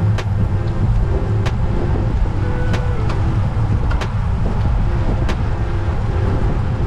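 Steady low wind and road rumble on a bike-mounted camera's microphone while riding in a group of road cyclists. Under it runs soft background music: short notes stepping in pitch, with a sharp click about every second and a quarter.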